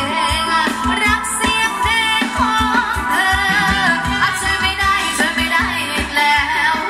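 Live Thai ramwong dance music: a singer's wavering melody over sustained instrumental tones and a steady, regular drum beat.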